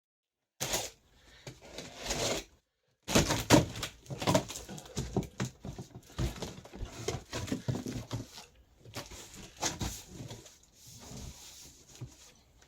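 Cardboard shipping box being cut open with a box cutter: irregular scraping and rustling of blade and cardboard in short bursts, starting about half a second in.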